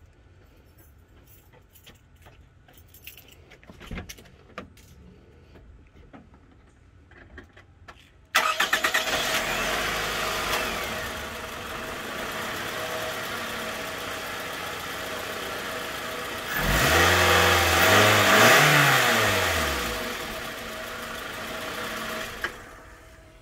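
The 2005 Toyota Camry's 2.4 L four-cylinder engine starting about eight seconds in, test-run after a spark plug change. It runs steadily, is revved once, rising and falling, then is shut off near the end; a few faint knocks come before the start.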